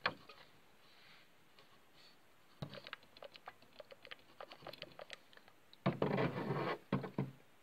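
Water trickling into a plastic tub of water: a patter of small irregular drips starting a few seconds in, then two short spells of heavier splashing near the end.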